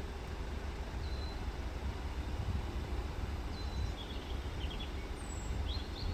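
Small birds chirping: a few short whistled notes, then a quick cluster of chirps near the end, over a steady low outdoor rumble.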